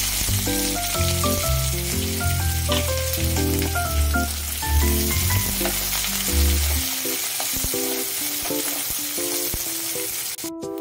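Sliced onions frying in hot oil in a metal kadai: a steady, loud sizzle that cuts off abruptly near the end. A melodic background music track plays over it.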